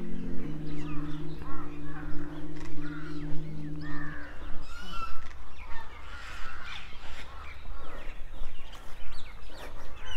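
Birds chirping and calling over and over, with a steady low rumble underneath. Held low notes sound during the first four seconds, then stop.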